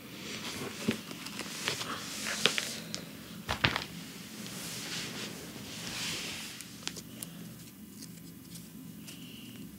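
Soft rustling of clothing and a paper photo being handled, with a few small clicks and a slightly louder rustle about three and a half seconds in, over a low steady room hum.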